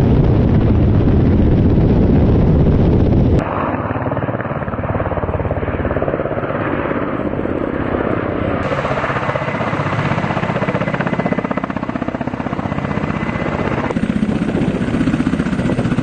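Ka-52 attack helicopter in flight, its coaxial rotors beating with a dense rapid chop over the turbine noise. The sound changes abruptly a few times as different shots are cut together, loudest and deepest in the first few seconds.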